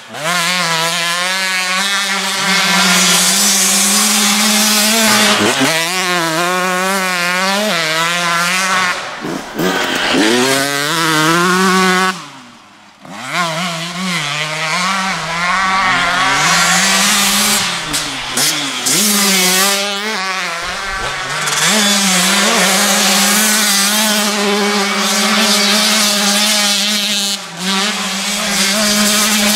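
2016 KTM 125SX single-cylinder two-stroke engine, fitted with an FMF Fatty expansion chamber and Titanium Powercore 2.1 silencer, being ridden hard. The revs climb and fall repeatedly through the gears, with quick throttle blips. The sound drops away briefly about twelve seconds in.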